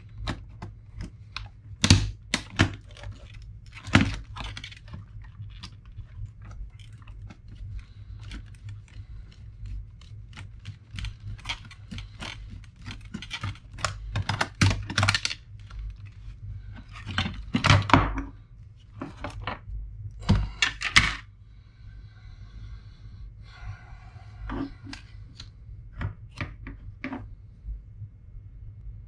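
Plastic laptop parts being handled and pried apart on a workbench: a string of clicks, rattles and scrapes with several louder knocks, the loudest clustered around two-thirds of the way through.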